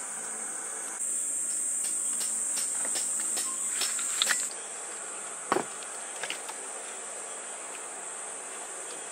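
A steady high-pitched chorus of summer insects singing. A few sharp clicks come over it, the loudest about four seconds in, and a single sharp knock about five and a half seconds in.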